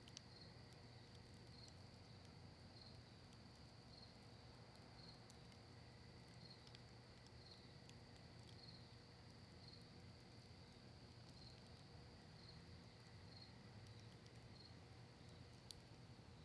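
Faint wood campfire of cedar and maple with occasional sharp crackles, the loudest near the end, over a steady high-pitched cricket trill that pulses about once a second.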